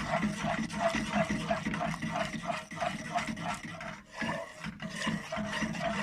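A utensil scraping round a pot in quick rhythmic strokes, about three a second, stirring milk, chocolate chips and cream on the heat until the chocolate melts into a sauce. The strokes pause briefly about four seconds in.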